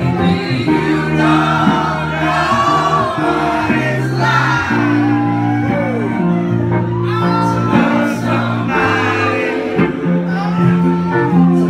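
A live band playing a song, with a woman and a man singing together over strummed acoustic guitar.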